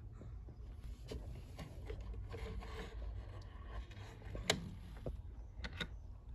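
Hands handling small plastic toys and a small cloth on a shelf: soft rubbing and scraping with scattered light clicks, the sharpest about four and a half seconds in.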